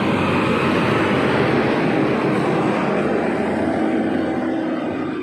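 A motor vehicle's engine running loudly and steadily, close by, dropping off at the very end.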